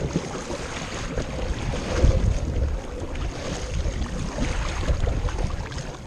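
Kayak paddle strokes splashing and dripping in the water, with wind buffeting the microphone in low rumbles.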